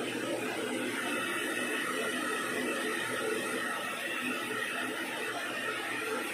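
A steady whir with hiss and a faint steady whine, like a small electric blower or motor running without change.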